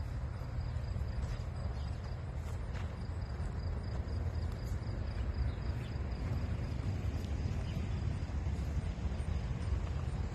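Steady low outdoor rumble, with a faint, evenly pulsing high chirp of an insect above it.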